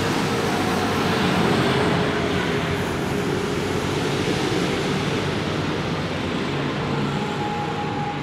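Steady street traffic noise: the continuous wash of vehicles running by, with a faint engine hum under it.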